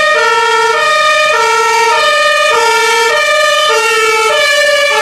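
Ambulance two-tone siren (German Martinshorn-style) sounding steadily, swapping between a low and a high note roughly every half second.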